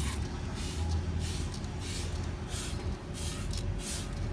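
Hand-held water bottle spraying in repeated short squirts, roughly two a second, onto a clear-coated steel chassis rail, over a steady low hum.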